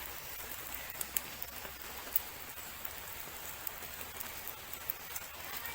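Light drizzle falling: a steady patter with scattered sharp drop ticks.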